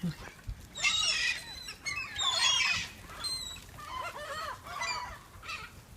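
A flock of gulls calling, with many overlapping squawking calls in bursts. The loudest bursts come about a second in and again around two and a half seconds.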